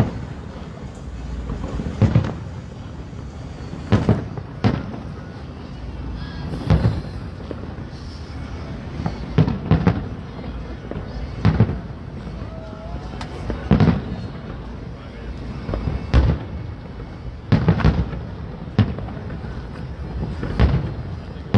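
Fireworks display: about a dozen booming bursts at irregular gaps of one to two seconds, each with a low rumbling tail.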